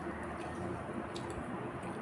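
Someone eating instant noodles: chewing and mouth sounds, with a few faint clicks of a metal fork and spoon, over a steady low hum.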